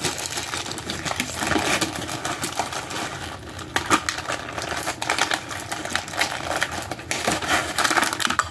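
Thin clear plastic bag crinkling and rustling as it is handled, with many small clicks and taps. Near the end a hard clear plastic case is handled.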